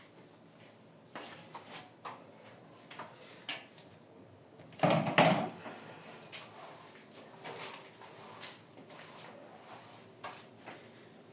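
Scattered light knocks and clicks of things being handled and moved about in a kitchen, with a louder clatter about five seconds in.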